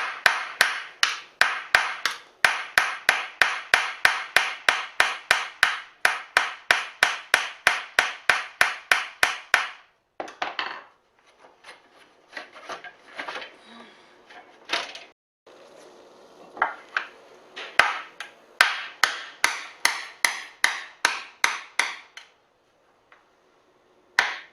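Hammer tapping out the pin that holds the lamms on a Macomber weaving loom: quick, even taps, about four a second, for some ten seconds. Then come a few seconds of fainter, scattered knocks, another run of taps, and a brief pause near the end.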